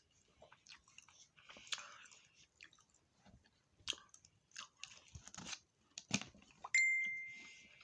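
Close-up eating of fish and tater tots: chewing with scattered sharp crunches and mouth clicks. Near the end, a single bright ding starts suddenly and rings out, fading over about a second; it is the loudest sound here.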